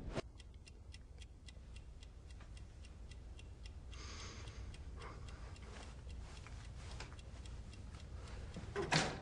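A clock ticking steadily in a quiet room, about three ticks a second, over a low hum. Near the end there is one louder, sudden sound.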